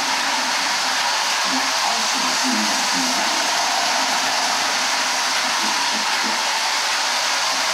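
Steady whirring of a toy train running around its track, with faint, low, muffled voices a couple of times.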